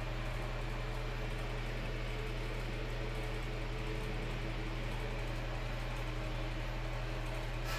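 Steady low hum with an even hiss: constant room background noise from running equipment, with no cat calls.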